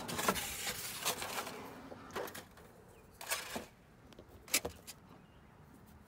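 Handling noise while eggs are gathered from wood-shaving bedding: rustling for the first couple of seconds, then a few separate sharp clicks and knocks as the eggs and a plastic egg carton are handled.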